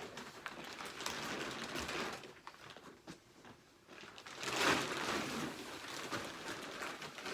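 Rustling and scraping as the nylon tent and its bag are handled, with a louder rustle about halfway through.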